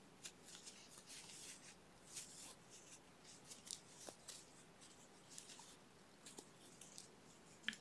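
Faint, scattered rustling and scratching of yarn being worked with a crochet hook, close to near silence.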